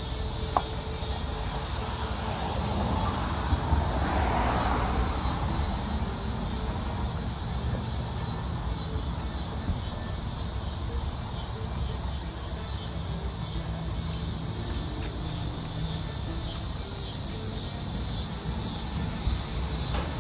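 Insects chirping in a high, steady trill that turns into evenly repeated pulsing chirps in the second half, over a low steady rumble.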